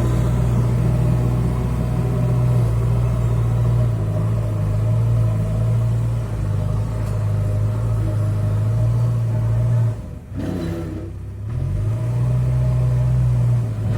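JCB 3DX backhoe loader's diesel engine running steadily. About ten seconds in it dips briefly, then its pitch rises back to the steady running note.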